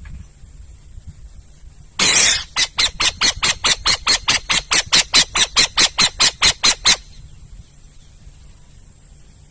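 Owl giving one harsh, hissing screech, then a rapid run of about twenty short, raspy calls, about four to five a second, that stops abruptly after some five seconds.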